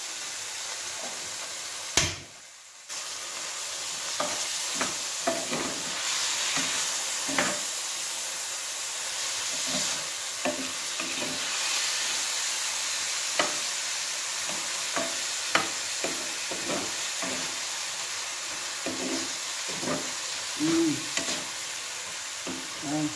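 Chicken pieces sizzling in hot oil in a pan, with a utensil clicking and scraping against the pan as they are stirred. A sharp knock about two seconds in is followed by a brief drop in the sizzle.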